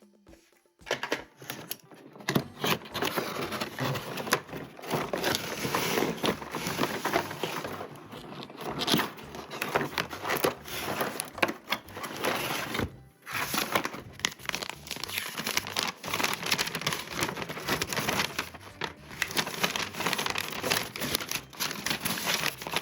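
Toy packaging being handled and crumpled: dense crinkling and crackling that pauses briefly about thirteen seconds in.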